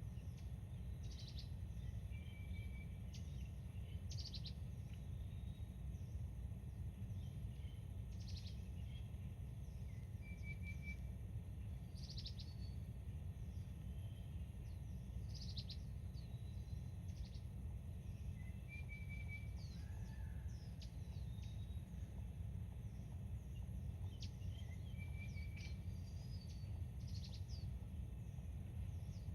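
Wild birds calling: short high chirps that sweep downward every second or two, and a brief three-note call that comes back several times. Under them runs a steady low rumble.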